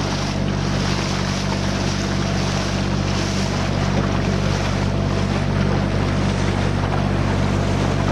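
Fishing boat's engine running steadily at a constant pitch, with a steady hiss of water and wind over it.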